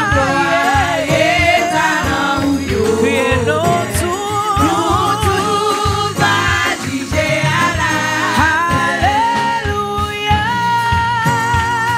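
A woman singing a Haitian Creole gospel praise song into a microphone, with wavering held notes over a steady instrumental accompaniment.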